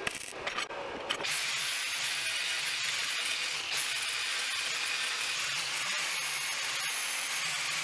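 Makita angle grinder grinding down the weld on the end of a steel tube table leg. It grinds in short passes for about the first second, then steadily.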